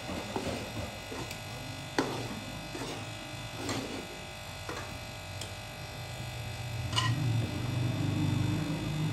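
A slotted metal spoon knocking and scraping against an aluminium karahi as chana dal is stirred in ghee, giving a few sharp clinks. Under it runs a steady low buzz that grows louder near the end.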